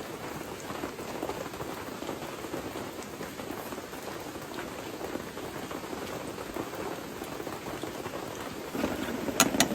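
Steady rain falling, an even hiss, with a few sharp clicks shortly before the end.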